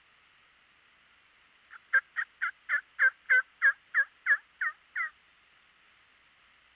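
A series of about a dozen turkey yelps, evenly spaced at about three a second, each note dropping in pitch, starting about two seconds in and lasting about three seconds, over a faint steady hiss.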